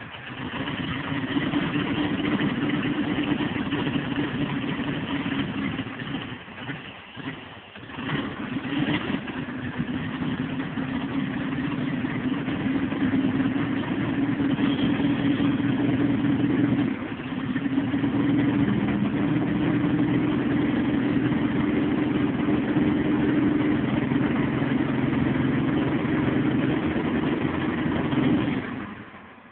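Farmall Cub four-cylinder flathead engine being test-run: it catches about half a second in, falters briefly around six to eight seconds, then runs steadily until it is shut off near the end.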